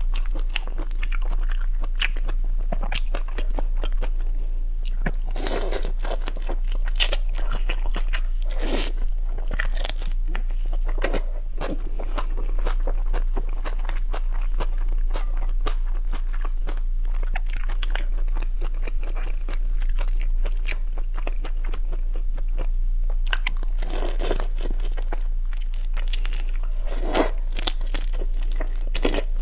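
Close-miked eating of whole raw shrimp in a chili oil marinade: biting and chewing, with many small clicks and several louder crunches of shell scattered through. A steady low electrical hum runs underneath.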